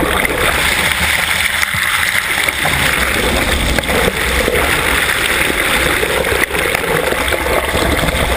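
Steady rush of water streaming past an underwater bow camera on a moving sailing yacht, heard through the camera housing, with a few sharp clicks about four and six and a half seconds in.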